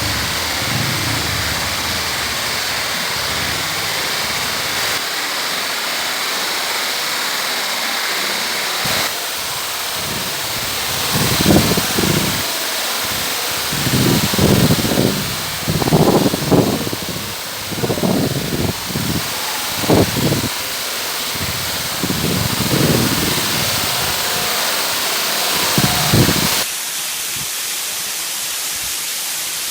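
Banyunibo waterfall: a steady, loud rush of falling water. Through the middle, irregular low rumbles come and go on top of it.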